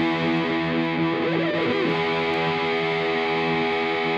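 Background music: long held chords that change about two seconds in.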